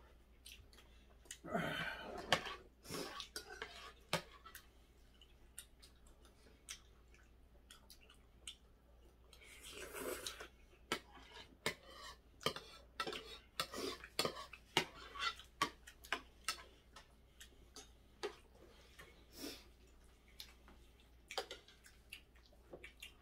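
A metal spoon and chopsticks clinking and scraping against plates and bowls while eating, in scattered sharp clicks, with two longer, louder noisy stretches about two and ten seconds in.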